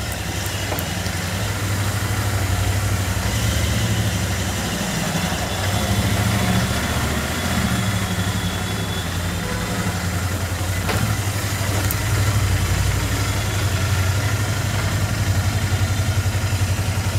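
Royal Enfield Interceptor 650's 648 cc parallel-twin engine running steadily at low revs, then cutting off right at the end.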